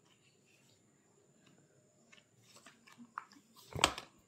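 Handling noises while unboxing a phone: a few light clicks and rustles of a plastic phone case and cardboard box, then a loud brief brushing bump near the end.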